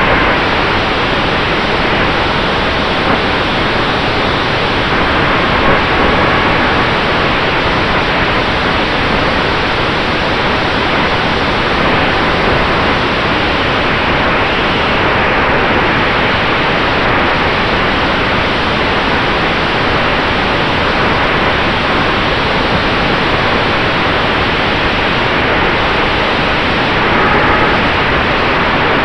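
Loud, steady wind rush over the onboard camera of an E-flite P-47D Razorback RC warbird in flight. A faint steady whine from its electric brushless motor and propeller sits beneath it.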